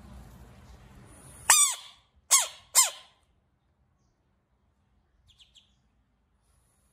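Three loud, short animal calls, each falling steeply in pitch: one about a second and a half in, then two more close together within the next second and a half. A faint hiss stops just before the first call, and a few faint high chirps come near the end.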